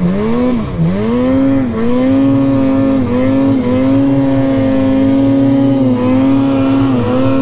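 Snowmobile engine working hard through deep snow. The revs dip and recover several times in the first few seconds, then hold high and mostly steady, with a last brief dip near the end.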